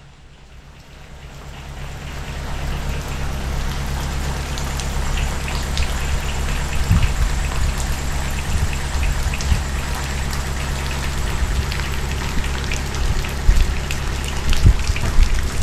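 Steady rain, with individual drops striking nearby surfaces, over a low steady hum.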